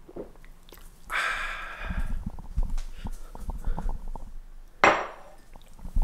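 A sip of coffee from a mug about a second in, then a run of low knocks and rubbing from a handheld phone camera being carried, with one short, sharp noise near the end.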